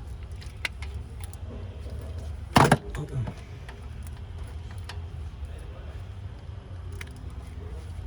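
Hand tools and metal parts clinking and knocking while a car's starter is being bolted in, with one loud clank about two and a half seconds in, over a steady low hum.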